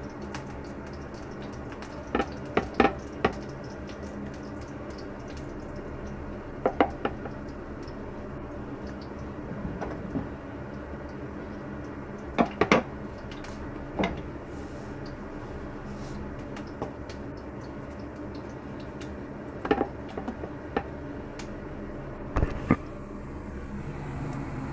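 Intermittent short knocks and clacks of chopped onion and a bowl being handled on a wooden cutting board, in small clusters, over a steady background hiss.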